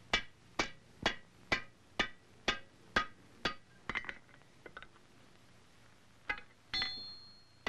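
Hand hammer striking a white-hot wrought iron rifle barrel over a steel mandrel on a swage block: fast, moderate blows about two a second, forge-welding the barrel's seam at welding heat. After a run of eight blows come a few lighter knocks and a pause, then two more strikes near the end, the last ringing.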